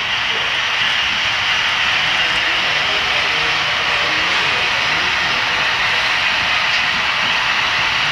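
Long HO-scale model coal train running on the layout: a steady, even whirr of many metal wheels rolling on the rails, with no change in level.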